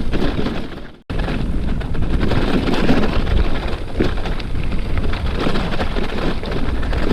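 Wind buffeting the microphone over the jolting and rattling of a bicycle without suspension riding a rough, bumpy dirt trail. The sound drops out briefly about a second in, then carries on.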